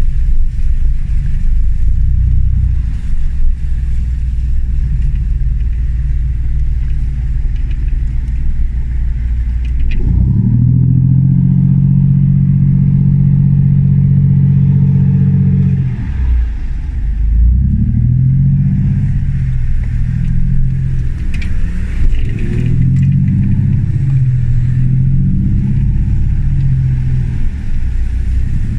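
Land Rover Discovery 1's 300Tdi four-cylinder turbo-diesel engine driving off-road. It runs low and steady for about ten seconds, then revs up suddenly and holds high revs for several seconds, then rises and falls again and again as the throttle is worked.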